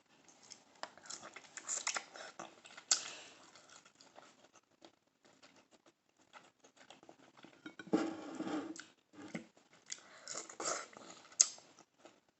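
Close-miked chewing and wet mouth sounds of someone eating boiled shrimp, with irregular small clicks and crackles and a few louder bouts.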